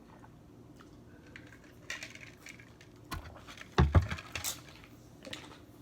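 Scattered clinks and taps of cutlery and dishes during a meal, with a heavy thump about four seconds in.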